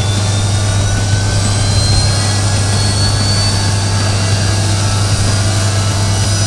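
Textron AirLand Scorpion jet's twin Honeywell TFE731 turbofans running on the ground: a steady rumble with thin high whines that creep slowly upward in pitch.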